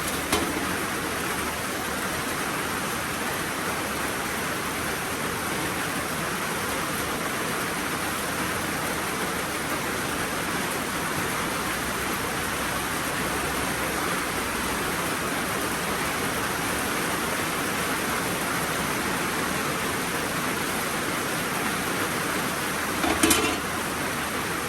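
Heavy rain falling in a steady, even hiss, with a short knock just after the start and a brief clatter near the end.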